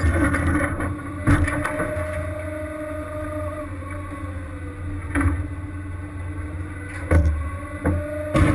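Crab fishing boat's engine and deck machinery running with a steady low hum and a whining tone that slowly sags in pitch and comes back. Several sharp knocks and clanks of gear break through it, about five in all.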